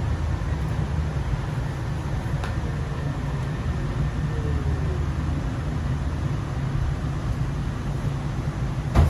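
Sound Transit Series 2 light rail train running with a steady low rumble, a faint falling whine midway through, and a sharp click near the end.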